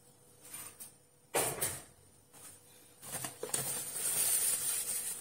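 Kitchen handling sounds while filling pastry: a short clatter about a second and a half in, then a couple of seconds of scratchy rustling.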